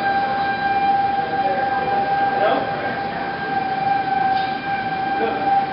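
Outdoor tornado warning siren holding one steady tone, over a steady hiss of wind and rain.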